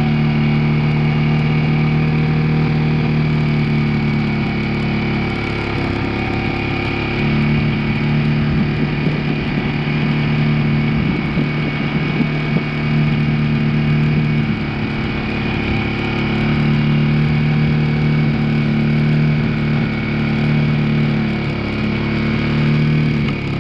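2002 Yamaha 225's engine idling steadily with the clutch pulled in, with irregular knocks around the middle and a single sharper clunk about halfway through: the clunking from the clutch area that the owner is tracking down.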